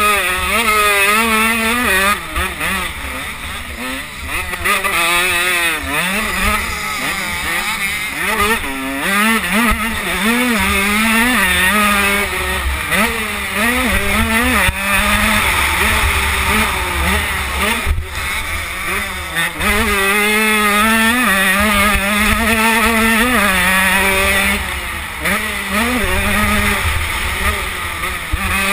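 KTM 85 two-stroke motocross bike engine revving hard and dropping back again and again as the rider works the throttle and gears around the track, heard from a camera mounted on the bike. A low rumble of wind on the microphone runs under the engine.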